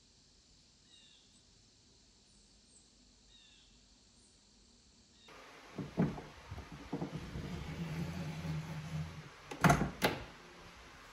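Faint bird chirps at first. Then, about five seconds in, a hand-slid lever on a museum exhibit panel scrapes and rumbles along its track and hits its end stop with two loud knocks near the end.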